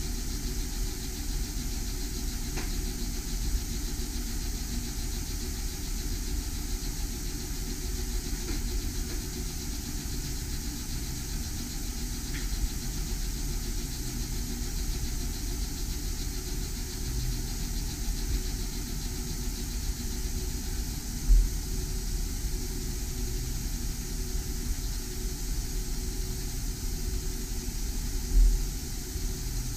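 Laser engraver with a rotary attachment running while engraving a glass: a steady machine hum and rumble. Two short low thumps come about two-thirds of the way through and again near the end.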